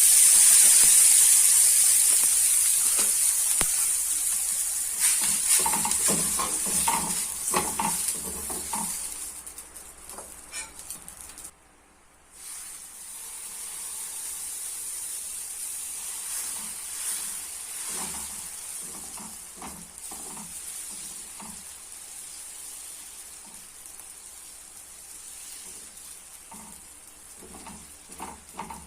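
Dosa batter sizzling on a hot griddle, loud at first and fading, with a short drop-out about twelve seconds in and then a quieter steady sizzle. Scattered light knocks and scrapes run through it.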